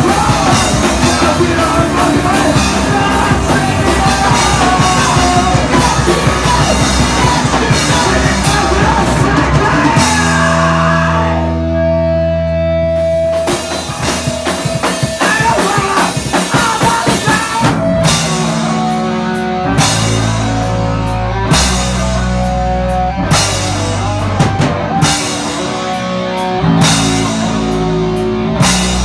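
Loud live rock band playing with drums, bass, electric guitar and a singer. About ten seconds in the band drops to one held, ringing chord for a few seconds, then comes back in with stop-start hits roughly every two seconds.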